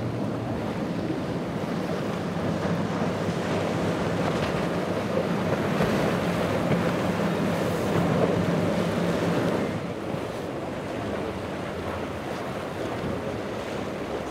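Outboard engines of a center-console boat running at speed through choppy water, a steady drone under the splash of its wake and surf, with wind buffeting the microphone. The sound drops to a quieter level about ten seconds in.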